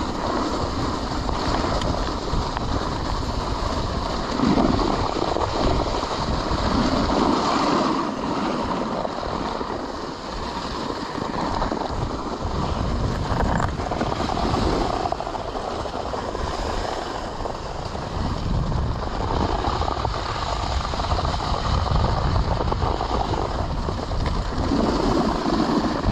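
Cooper Super Sprint dog sled's runners sliding over snow, a steady hiss and scrape, with wind noise on the microphone.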